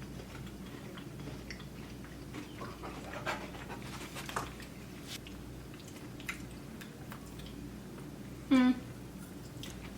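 Quiet eating sounds, small crunches and clicks, while a crispy rice chocolate bar is chewed. Then a dog gives one short, loud bark about eight and a half seconds in.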